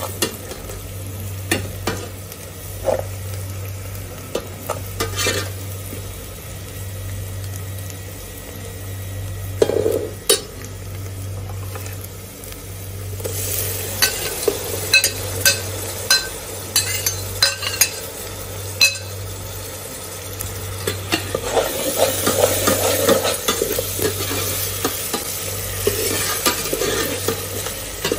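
Chopped onion, chillies and spices frying in oil in an aluminium pot, with a metal ladle clicking and scraping against the pot as it stirs. About halfway through, the sizzle grows louder as chopped tomatoes are tipped in, and near the end the stirring and sizzling grow busier again.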